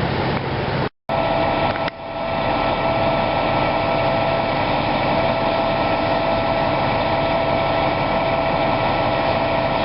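A steady mechanical hum over an even rushing noise, with a constant tone running through it; the sound cuts out completely for a moment about a second in.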